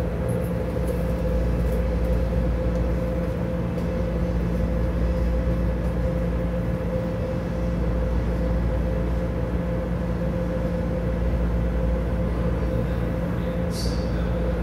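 Las Vegas Monorail car humming while it stands at a station: a steady low rumble with a constant mid-pitched whine above it.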